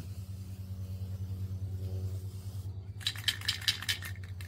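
Electric paint sprayer buzzing steadily as it sprays white paint onto a wooden post. About three seconds in comes a second or so of bright metallic jingling and clicking.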